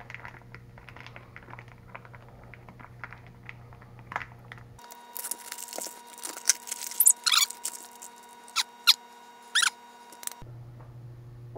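Scissors snipping and plastic packaging crinkling as a vacuum-sealed pack of sliced country ham is cut open, with faint rustles at first. From about five seconds in come loud, sharp crackles and a few squeaky sounds as the plastic is pulled apart and peeled off the ham, ending about a second before the end.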